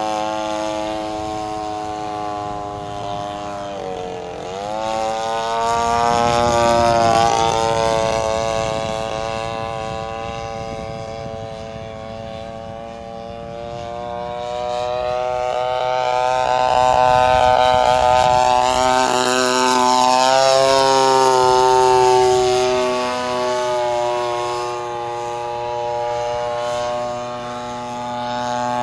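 Engine and propeller of a radio-controlled Super Stinker model biplane in flight, its note rising and falling in pitch and loudness as it manoeuvres. The pitch drops sharply about four seconds in and then climbs back.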